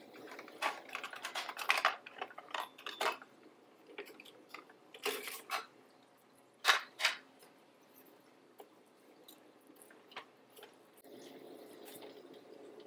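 Hands handling plastic aquarium equipment, tubing and cables: scattered small clicks, taps and rustles, with one sharper click about seven seconds in and a faint steady hiss near the end.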